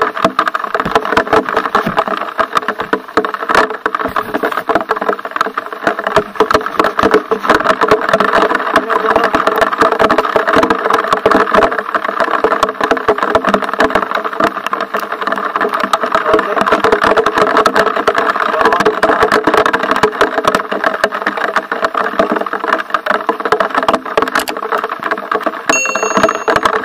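Dirt bike engine running as the bike is ridden over rough trail, heard through an onboard microphone, with constant rattling and knocking from the bike over the bumps. Near the end a short bell-like chime sounds.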